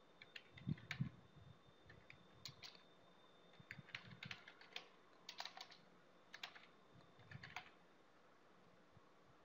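Faint typing on a computer keyboard: irregular runs of key clicks as a server name is typed, stopping near the end.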